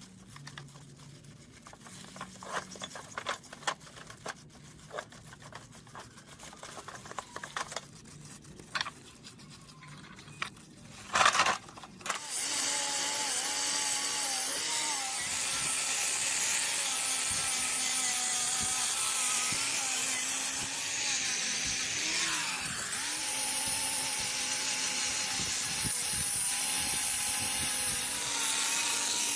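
Light clicks and knocks, then about twelve seconds in a handheld electric power tool starts and runs steadily on rusty gearbox metal, its pitch dipping now and then as it is loaded.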